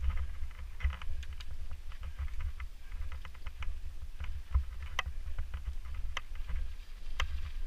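Mountain bike rolling over sand and loose gravel, with scattered sharp clicks and rattles from the tyres and bike, the loudest about five seconds in and again near the end. Wind rumbles on the camera microphone underneath.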